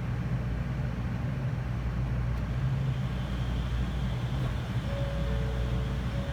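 Interior noise inside a JR Kyushu N700 series 8000 Shinkansen car: a steady low rumble with a faint hiss above it. About five seconds in, two faint steady tones, one a little lower than the other, come in over it.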